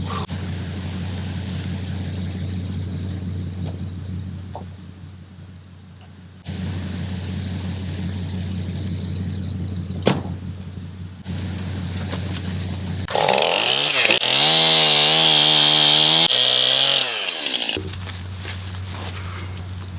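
Steady low engine drone. About thirteen seconds in, a chainsaw revs up and cuts into wood for about four seconds, its pitch wavering under load, then drops back to the drone.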